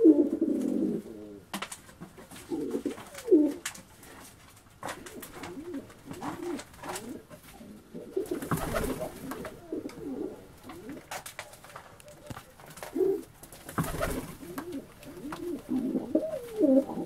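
Domestic pigeons cooing: repeated low, warbling coos all through. Two short noisy bursts break in, about halfway through and a few seconds before the end.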